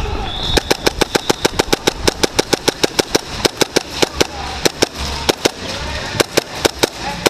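Airsoft gun firing a rapid string of shots, about six or seven a second, the shots growing more spaced and irregular in the second half.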